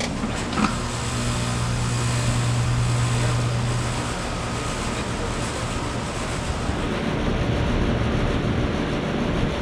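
Ruud Achiever RA14 heat pump outdoor unit starting up in heat mode. A click comes about half a second in, then the compressor hums strongly and steadily for a few seconds, and the rush of the outdoor fan builds toward the end.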